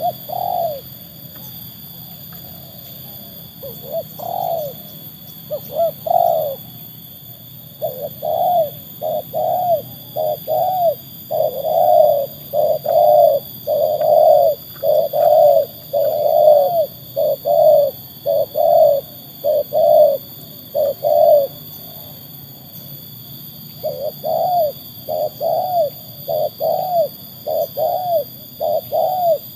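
Spotted dove cooing. A few single coos come in the first seconds, then a long run of quick, repeated coos from about 8 to 21 seconds, a short pause, and another run from about 24 seconds on.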